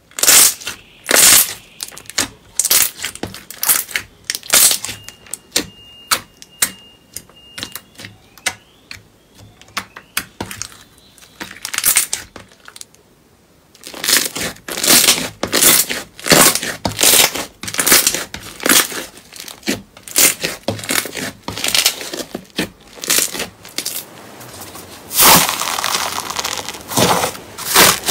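Hands pressing and squeezing slime, with many sticky pops and crackles as trapped air pops out. The clicks come in uneven clusters, thickening into a dense crackle near the end.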